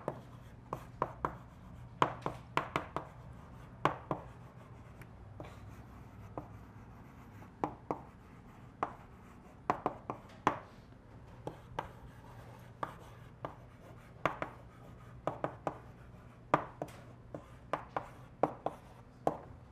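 Chalk writing on a blackboard: a run of sharp, irregular taps and short scrapes as each letter is stroked on.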